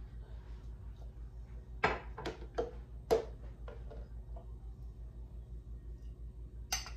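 Metal ladle knocking against a glass jar and drinking glasses as fruit punch is ladled out: a cluster of four or five sharp clinks about two to three seconds in, and another near the end, over a steady low hum.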